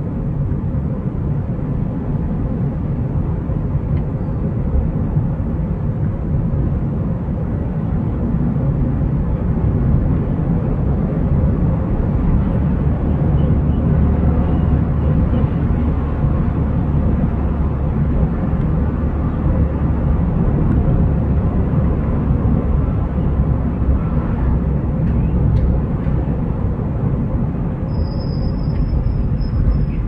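Steady low rumble of a car driving on a paved road, heard from inside the cabin: engine and tyre noise.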